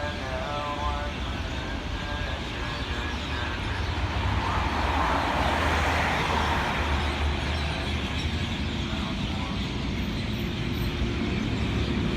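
Road traffic running steadily, one vehicle swelling past about five to six seconds in, with a faint chanted prayer recitation carrying from a distance near the start and again later.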